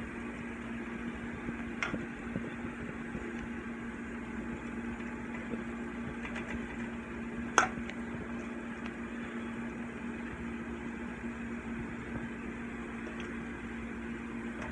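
Steady hum of a kitchen appliance fan running, with a constant low tone, and two brief clinks: a light one about two seconds in and a sharper one about seven and a half seconds in.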